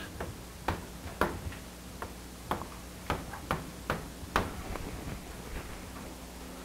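Chalk tapping and clicking against a blackboard as an equation is written: a run of sharp, irregular taps that stop after about four and a half seconds.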